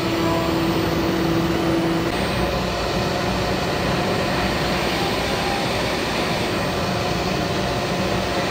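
CNC router spindle running as its end mill cuts through MDF sheet, a steady machine noise. A tone in it fades out about two seconds in.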